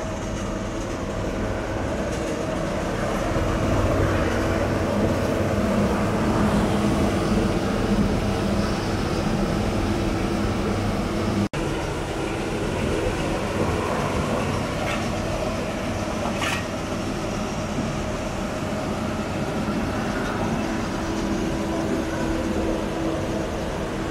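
Vögele SUPER 1900-3 tracked asphalt paver running steadily while laying asphalt, a continuous diesel drone with a steady low hum. A very short break in the sound about eleven and a half seconds in.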